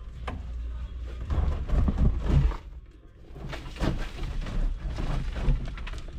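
Irregular knocks, clunks and rustling of junk being pulled out of an old car's interior, over a low rumble, with a brief lull about halfway through.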